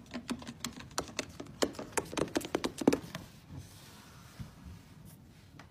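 A quick run of light taps and clicks on a wooden floor, several a second, stopping about three seconds in.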